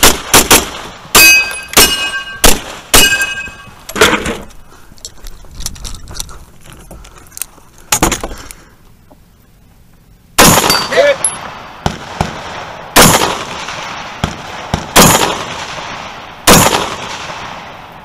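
A quick string of about seven pistol shots fired from inside a car, some followed by a short metallic ring. After a pause with a single knock, rifle shots resume about ten seconds in, roughly one every one to two seconds.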